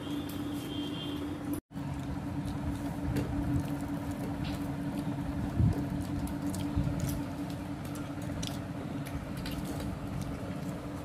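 Hands breaking apart crisp fried corn cutlets and handling them on a steel plate: small crumbly clicks and one louder knock a little past halfway, over a steady background hum.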